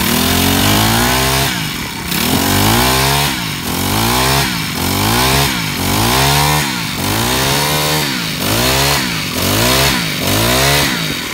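Small four-stroke E4 brush cutter engine revved hard and let fall back, over and over, about once a second. Its pitch rises sharply on each throttle blip and drops at once.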